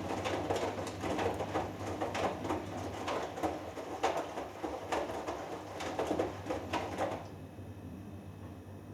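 Hoover Dynamic Next washing machine drum turning during the wash, the laundry and water sloshing and swishing two or three times a second. The drum stops about seven seconds in, leaving a low steady hum.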